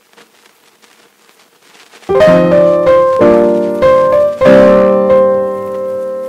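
Background piano music: faint at first, then chords begin about two seconds in, struck again every second or so and left to ring.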